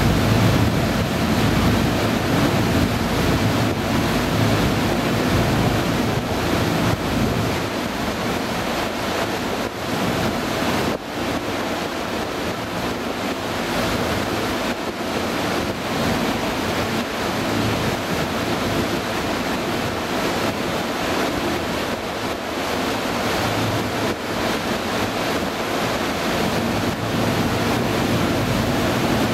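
Wind gusting on the microphone and water washing past a moving harbour tour boat, over the low steady hum of the boat's engine.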